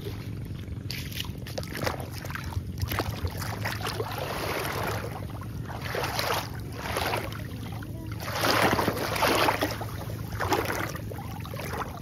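Footsteps wading through ankle-deep shallow seawater in sandals, each step a splash and slosh, about one a second, loudest a little past the middle. A low steady rumble runs underneath.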